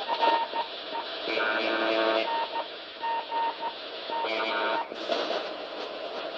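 Shortwave reception of UVB-76, 'The Buzzer', on 4625 kHz in upper sideband, over steady static hiss. Two buzzes, each just under a second long, sound about three seconds apart. Between them Morse code beeps on one tone, in short and long marks.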